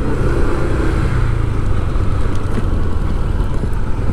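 Steady rumble of a motor vehicle's engine and road noise, with no distinct events.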